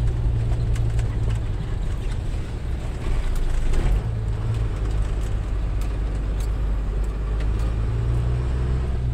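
Truck engine drone heard from inside the cab while driving, a steady low hum with road noise over it. The hum eases off for a couple of seconds about two seconds in, then settles back.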